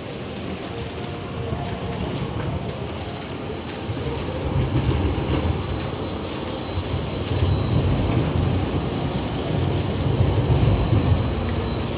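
A tram running past on street rails, its low rumble building about four seconds in, over a steady hiss of rain on wet pavement.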